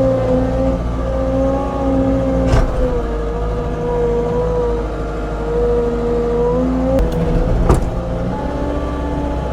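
Skid steer engine running steadily under load with a wavering whine, and two sharp clanks, one about two and a half seconds in and one about three quarters of the way through.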